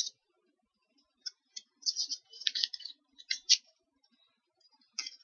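Tarot cards being handled and slid against one another: a string of short, irregular clicks and rustles, busiest in the middle and again near the end.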